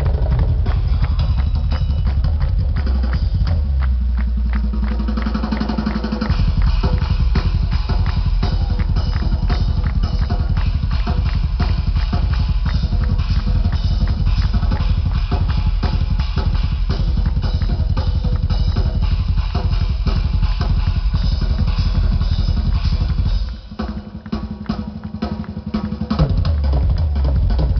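Live drum solo on a full rock drum kit: fast, dense bass-drum strokes under snare and cymbal hits, loud and unbroken. About three-quarters of the way through, the bass drum drops out for a couple of seconds, then comes back in with a loud hit.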